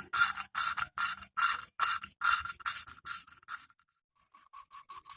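Valve being lapped by hand into its seat in a Honda Revo Absolute cylinder head, spun back and forth with lapping compound and oil: a rhythmic gritty scraping of about three strokes a second that stops about three and a half seconds in.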